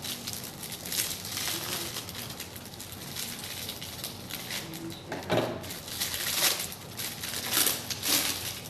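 Gift packaging being torn and opened by hand: irregular crinkling and rustling with scattered crackles.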